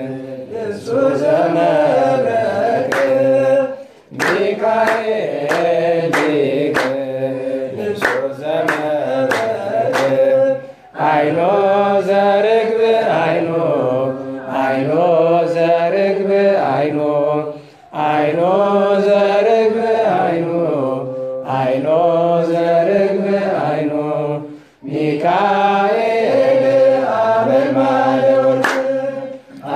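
Voices chanting a wereb, an Ethiopian Orthodox liturgical hymn to Saint Michael, sung together in phrases of a few seconds with short breaths between. Sharp claps or strikes keep a beat during the first ten seconds.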